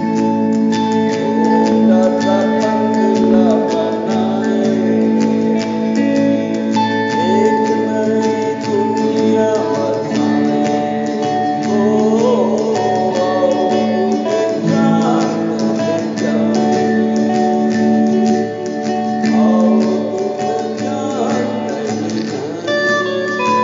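Acoustic guitar strumming the rhythm of a Hindi song, with an electric lead guitar and a singing voice playing melodic lines that bend and slide over it.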